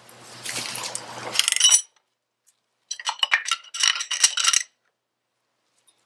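Metal hand tools clinking and rattling: a socket and bar worked on a primary-drive fastener, in two bursts with a short metallic ring.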